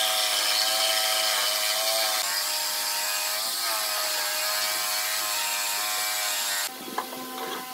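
Corded jigsaw sawing a curved scroll cut through a pine board: a steady motor whine with the blade's rapid chatter, wavering slightly as it is steered along the curve. The sound drops abruptly near the end, with a few knocks after.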